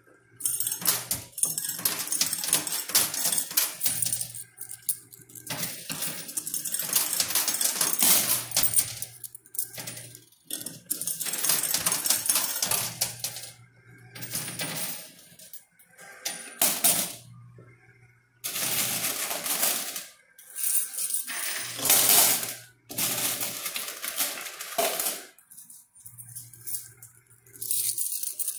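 Quarters clinking and clattering in a coin pusher machine, in repeated bursts of one to three seconds with short gaps.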